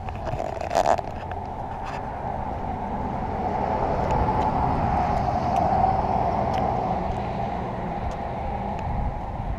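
A road vehicle going by, its noise swelling to a peak around the middle and then fading, with a few sharp knocks near the start.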